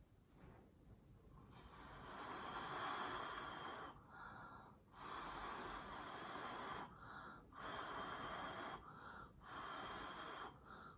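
Air blown onto wet pour paint in four rushing bursts of a second or two, each broken off by a short pause, to push the paint across the canvas.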